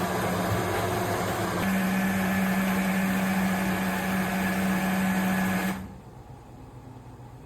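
MIAOKE portable USB-rechargeable blender's small motor running, its hum settling to a steady pitch about two seconds in and cutting off about six seconds in.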